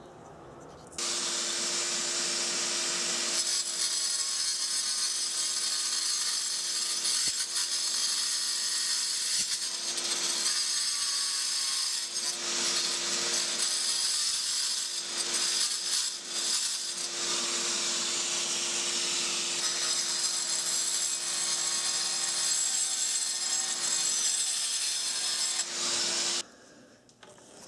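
4-inch angle grinder with a diamond blade cutting up into a granite countertop slab from underneath. The motor runs steadily with a constant whine under the cutting noise; it starts about a second in and stops shortly before the end.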